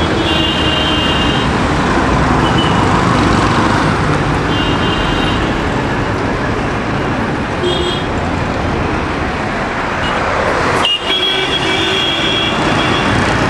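Dense city road traffic: the engines and tyres of cars, buses, auto-rickshaws and motorcycles passing close by, with vehicle horns tooting again and again, several short blasts and one longer one near the end.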